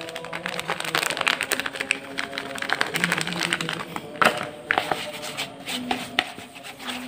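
Background music with steady held tones, over crinkling plastic and the crackle and scrape of hands working a crumbly bait mixture of flour and crushed wafer in a plastic bowl.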